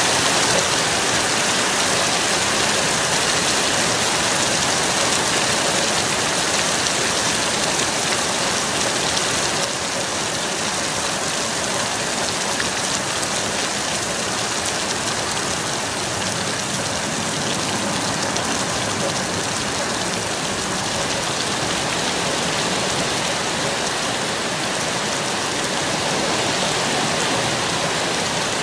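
Thunderstorm rain pouring steadily, a dense even hiss that eases slightly about ten seconds in.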